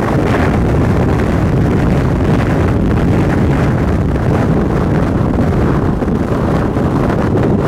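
Strong wind rushing over the microphone, mixed with the steady noise of a vehicle on the move.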